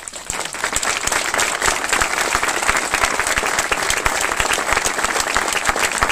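A small crowd applauding: many hands clapping densely, swelling over the first second and then holding steady.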